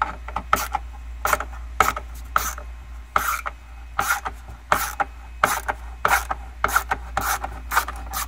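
Ratchet wrench with a T30 Torx bit loosening a bolt: the pawl clicks in a quick burst on each back-swing, in steady strokes about every half second.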